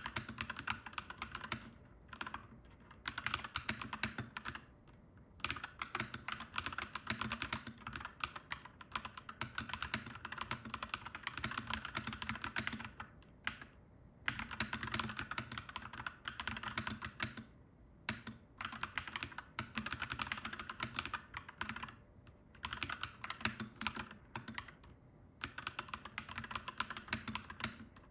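Fast typing on a clacky mechanical keyboard: dense runs of keystroke clacks broken by several brief pauses.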